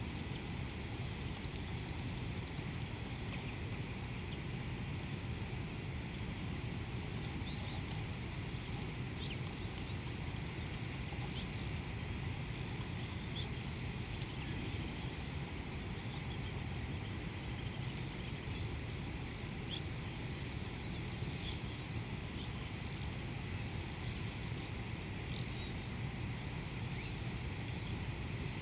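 Steady outdoor bush ambience: a continuous high-pitched drone, a low rumbling haze underneath, and scattered short faint chirps.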